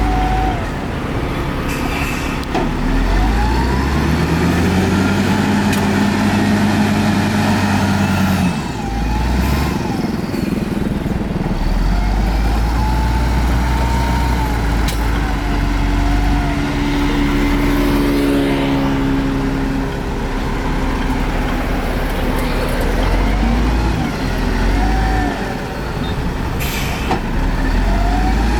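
Heavy diesel earthmoving machinery, bulldozer and dump trucks, running under load, the engine note rising and falling several times. Thin wavering squeals sound over it.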